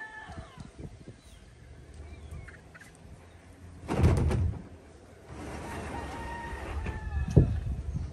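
A rooster crowing, the tail of one crow at the start and a long crow of about two seconds in the second half, with hens clucking. About four seconds in, a loud scrape as the plastic inner tank of an IBC tote is dragged against its steel cage, and a single thump a little before the end.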